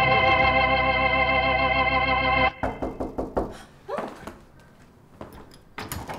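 Organ music of a soap-opera theme holding a sustained chord, which cuts off about two and a half seconds in. Quieter room sounds follow, with a few sharp knocks or clicks near the end.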